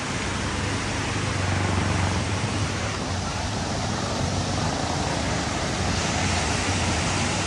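River in flood, a torrent of muddy floodwater rushing past in a steady loud roar. A deep rumble runs underneath: stones thundering as the current rolls them along the bed.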